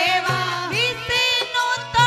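Women singing a Marwari devotional bhajan in a wavering melody, with a steady drum beat about twice a second.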